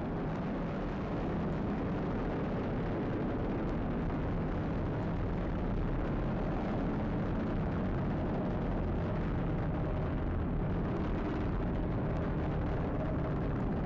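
Falcon 9 first stage's nine Merlin engines firing during ascent: a steady, loud, deep rumble.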